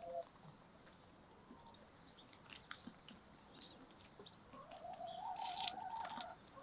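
Hens drinking and pecking from an enamel pot: scattered faint pecking clicks, with a brief hen note at the start and one drawn-out hen call, slightly rising, beginning about four and a half seconds in and lasting under two seconds.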